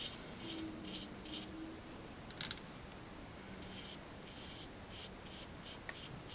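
Watercolour brush stroking across paper: a string of faint, short scratchy strokes, with a light tap about two and a half seconds in.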